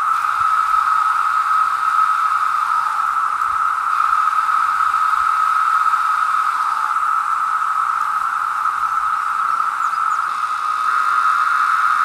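Chorus of periodical cicadas: a loud, steady droning buzz held at one pitch, with now and then a single call sliding down in pitch.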